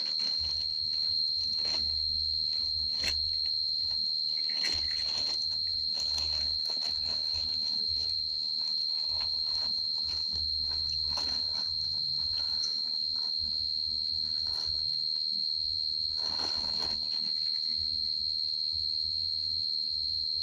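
A steady high-pitched whine on one unchanging tone, with a low hum that comes and goes and a few faint clicks.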